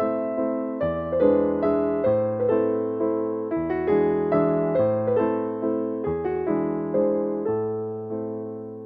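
Background music: a soft piano or electric piano tune, with gentle chords and a bass note changing every second or two, and each note fading after it is struck.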